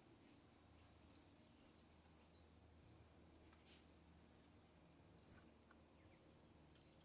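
Small birds giving short, high, thin chirps: a few single notes in the first second and a half, then a louder double chirp about five and a half seconds in, with faint falling call notes between them.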